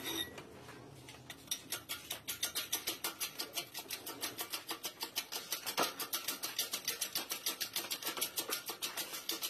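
A steady run of rapid clicks, about seven a second, starting about a second and a half in.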